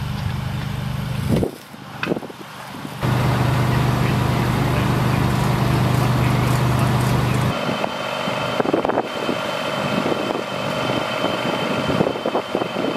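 Engines idling steadily, a low even hum. The hum drops away for about a second and a half near the start, then comes back. About halfway through it changes to a different running note with a faint thin whine on top and a few scattered knocks.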